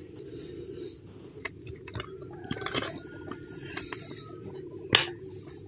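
Light handling noises and scattered small clicks as a string of serial lights is connected to the mains supply, with one sharper click about five seconds in, such as a plug or switch going in.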